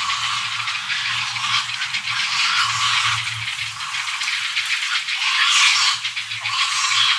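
Grey heron chicks calling in a nesting colony: many overlapping, rapid rattling calls that swell a little past halfway and again near the end.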